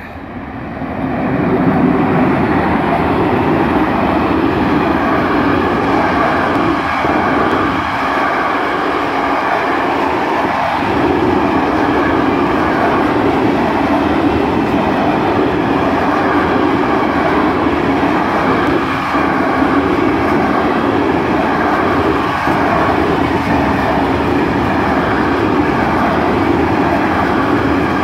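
Freight train hauled by an electric locomotive passing close by. The noise swells over the first two seconds as the locomotive goes past, then covered freight wagons roll by with a steady, loud rolling noise.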